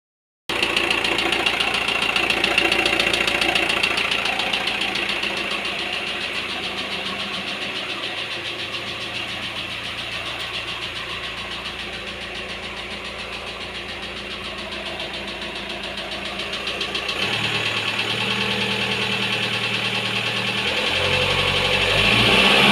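Volkswagen Transporter T5 engine running with a rapid, even knocking, the engine knock the owner is demonstrating. It idles at first, then the revs rise in the last few seconds.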